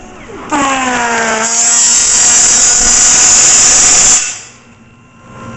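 Torchmate CNC table's plate marker etching guide lines into metal plate: a loud buzzing that comes on about half a second in, dropping in pitch as it starts, then runs steadily and cuts off about four seconds in, leaving a quieter hum.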